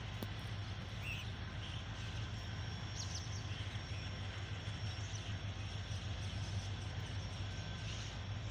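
Diesel locomotive engine running at low throttle as it moves slowly, a steady low hum, with a few short bird chirps.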